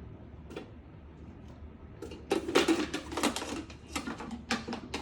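A run of clattering knocks about two seconds in, as cauliflower pieces are dropped into a Thermomix bowl.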